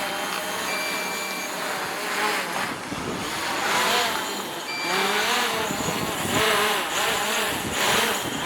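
DJI Mavic Pro quadcopter's motors and propellers whining, their pitch rising and falling as the drone fights strong gusts while landing, over surging wind noise on the microphone. Two short high beeps sound, one about a second in and one near the middle.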